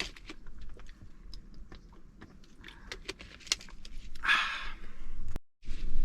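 Handling noises: scattered light clicks and knocks, with a short hissing rush about four seconds in and a brief dropout to silence near the end.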